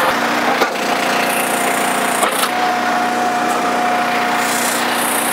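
Eastonmade 12-22 commercial log splitter running steadily while its box wedge forces through a round of northern red oak, the wood cracking sharply about half a second in and again a little after two seconds. A steady whine joins the engine sound about two and a half seconds in.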